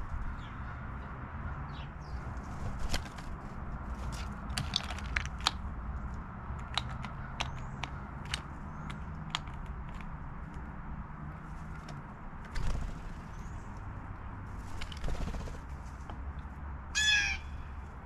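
Scattered sharp clicks and taps over a low steady rumble, then near the end one loud, harsh call of a blue jay.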